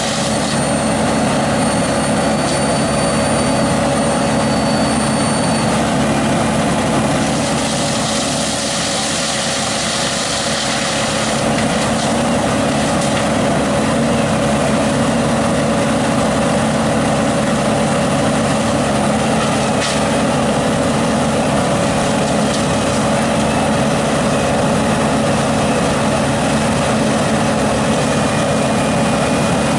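A heavy engine running steadily at an even speed, with a thin high whistle over it for the first few seconds.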